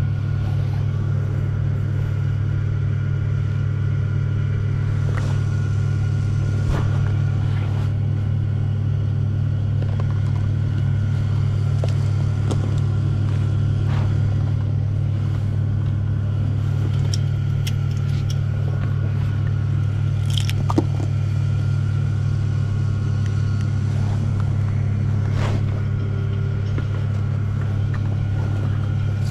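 Steady, loud low machine hum, with a few small clicks and taps from handling tools or parts.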